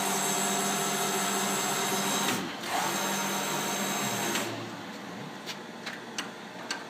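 Deckel FP-4M milling machine's table power feed running with a steady whine. It breaks off briefly about two and a half seconds in, resumes, then stops about four and a half seconds in, leaving a quieter machine hum with a few light clicks.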